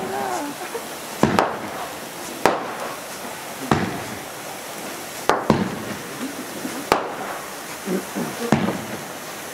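Fireworks battery firing: about seven sharp bangs, roughly one every second or so, with two in quick succession near the middle. Faint voices of onlookers come between the bangs.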